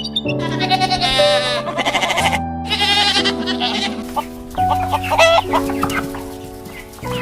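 Background music with animal calls laid over it: two wavering calls in the first few seconds, then a few shorter ones about five seconds in.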